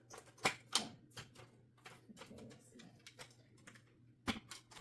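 Hard clicks and knocks from handling a sewing machine's extension table while trying to fit it onto the machine: a few sharp clacks about half a second in, light rustling, then two more clacks near the end.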